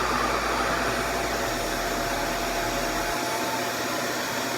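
RevAir reverse-air hair dryer running steadily: an even rush of suction airflow with a faint steady whine.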